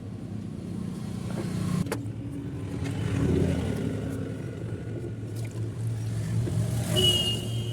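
Piaggio Ape auto-rickshaw engine running steadily, with a thin high tone heard briefly near the end.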